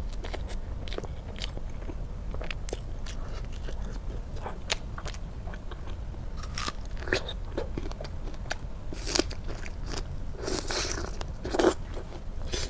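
Close-miked eating sounds of strawberry cake being bitten and chewed: a string of short wet mouth clicks and smacks, with a few louder, longer chewing bursts near the end.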